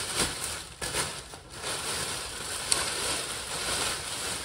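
Large clear plastic bag rustling and crinkling as it is pulled up and off an engine block on a stand, with a few sharper crackles.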